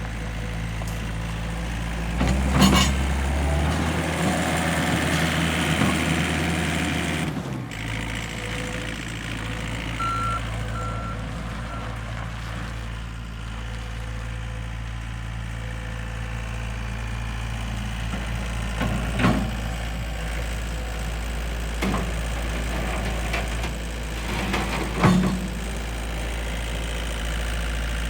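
Gehl R165 skid steer loader's engine running steadily, working harder and louder from about two seconds in until about seven seconds. Several sharp clanks are spaced through the rest.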